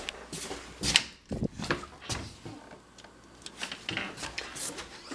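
A scatter of knocks, clicks and rattles from an interior door being handled and opened, with one louder knock about a second in.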